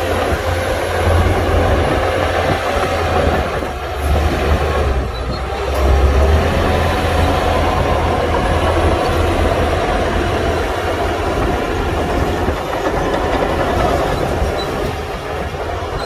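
Heavy diesel earthmoving machinery running: a steady low engine rumble, heaviest in the first six seconds and easing a little after.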